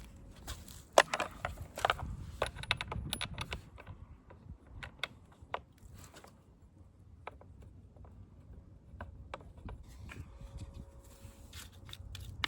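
Scattered clicks, knocks and clinks from hands handling hard objects, with no engine running. They are thickest in the first few seconds, thin out in the middle and pick up again near the end.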